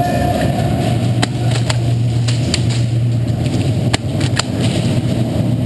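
Scattered single shots and BB hits from airsoft guns, sharp cracks at uneven intervals, over a constant low mechanical drone.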